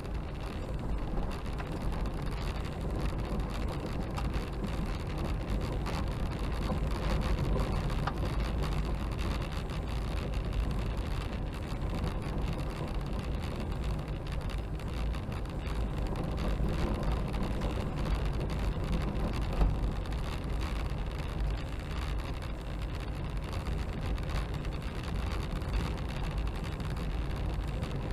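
Car driving along an unsealed gravel road, heard from inside the cabin: a steady low rumble of tyres and engine with a constant fine crackle of gravel under the tyres.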